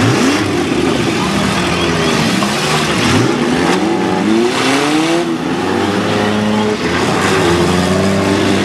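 Several small-car engines revving at once, their pitches rising and falling as the cars accelerate through the mud, with a few sudden crashes of cars ramming each other, mostly around the middle.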